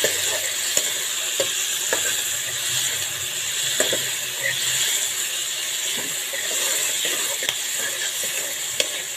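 Sliced onions and tomatoes sizzling as they fry in a metal kadhai, with a steady hiss. A ladle stirring through them scrapes and clicks irregularly against the pan.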